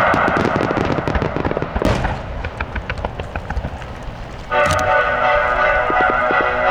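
Fireworks of a starmine barrage going off in a rapid string of bangs and crackles that thins to scattered pops. About four and a half seconds in, loud music with a held chord comes back in over the last pops.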